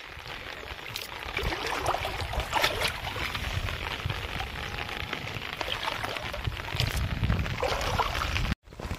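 Rain falling on shallow water, with water trickling and splashing around a fine gill net being handled. The sound cuts out briefly near the end.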